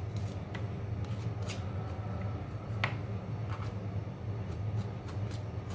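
Stone pestle grinding coarse coriander in a stone mortar: scattered scrapes of stone on stone with a few sharp clicks, over a steady low hum.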